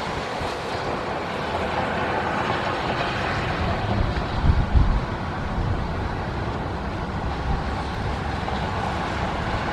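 Wind buffeting the microphone: a steady rushing noise with low rumbling thumps from a stronger gust about halfway through. No siren tone stands out.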